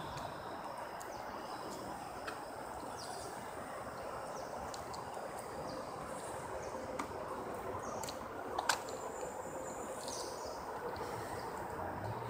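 Steady outdoor background noise with scattered short, high bird chirps and a few sharp clicks, the loudest click about eight and a half seconds in.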